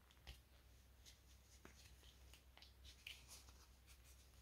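Near silence, with faint rustles and soft scattered ticks of a plastic crochet hook pulling thick cotton cord through the stitches.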